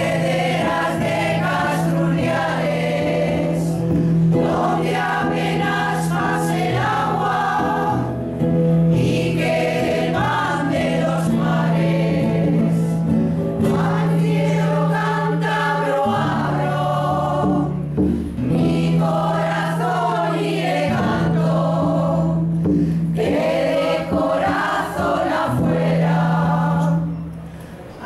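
Women's choir singing a folk song together, accompanied by a classical guitar. The sound dips briefly near the end, between phrases.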